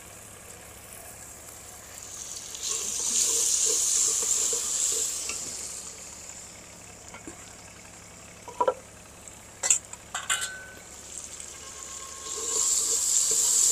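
Onion, tomato and green-chilli masala sizzling in a metal pot, just after crushed garlic and dried coriander have been added. The sizzle swells a couple of seconds in and again near the end, with a few sharp clinks of a steel ladle against the pot in between.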